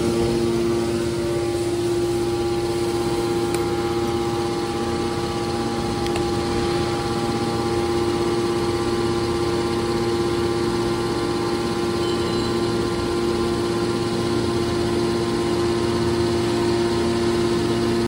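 Hydraulic power unit of a car baler running steadily, its electric motor and pump giving a constant hum with a few held tones.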